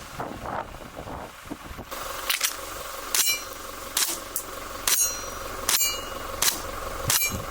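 Carbon8 Steyr L9-A2 CO2 blowback pistol being fired shot by shot, a sharp crack a little under once a second from about two seconds in, several shots followed by a short metallic ring.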